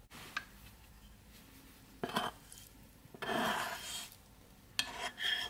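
Frying pan knocking against a ceramic bowl and a spatula scraping fried onions out of the pan. A few short clinks come first, then a longer scraping rush in the middle, and ringing clinks near the end.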